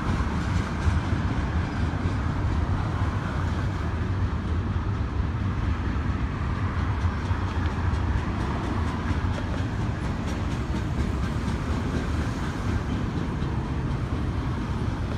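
Double-stack container cars of a freight train rolling past: a steady, continuous rumble of steel wheels on the rails with faint clicks running through it.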